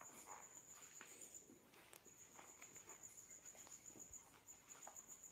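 Near silence: a faint, steady high-pitched pulsing tone, broken off briefly about two seconds in, with scattered soft footsteps on a hard floor.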